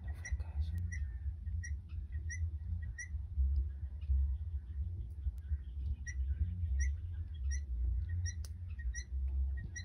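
Wild guineafowl calling: short, sharp chirps repeated about twice a second in two runs, pausing for a few seconds between them, over a steady low rumble.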